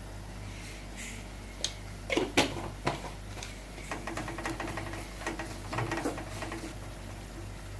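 A metal kitchen utensil knocking against a cooking pan, a few sharp clinks, then a run of quick clinks and scrapes for about three seconds.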